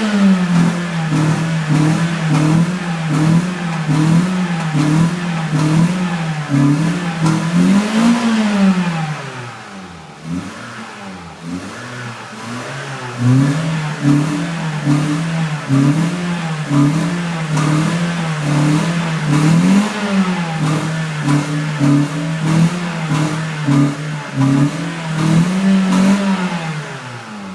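Stock 2000 Toyota Celica GT-S four-cylinder engine revved and held at high revs with small wavering blips. About nine seconds in it falls back and runs quieter for a few seconds, then it is revved up and held high again before dropping off at the very end.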